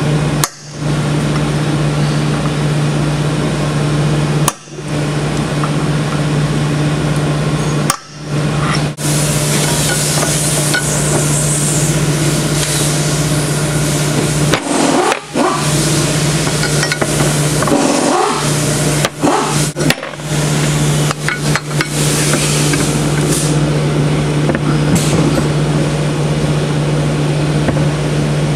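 Steady mechanical hum with hiss, broken by several short gaps, with a few light metal taps near the start: a punch being struck to stake a small steel plug into an aluminium transmission case.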